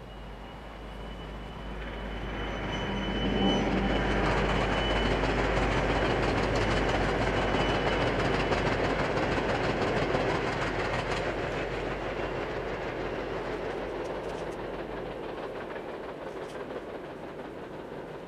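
A vehicle passing by: a broad rushing rumble that builds over the first few seconds, holds, then slowly fades, with a thin high whine in the first few seconds.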